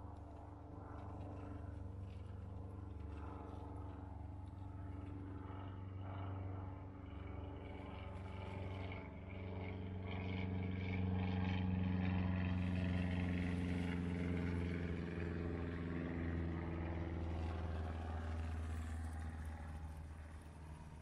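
A motor vehicle's engine running as a steady low hum that grows louder to a peak about halfway through and eases off near the end.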